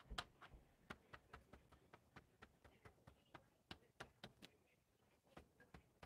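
A paint-loaded sponge dabbed again and again onto paper and into a plastic paint tray: faint, quick, irregular taps, about four a second.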